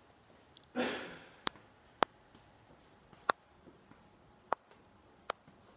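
Footsteps on a concrete floor: about five sharp, irregularly spaced heel clicks, with a brief noise about a second in.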